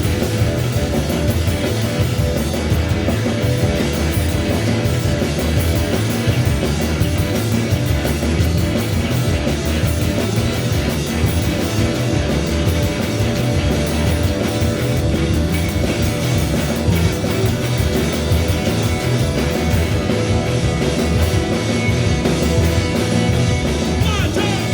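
Live rock band playing an instrumental break: electric guitars, bass and drum kit, with no singing.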